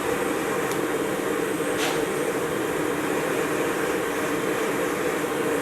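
Forced-draft wood stove burning hard with its blower turned up to a mid-high speed setting: a steady rushing roar of fan air and flame.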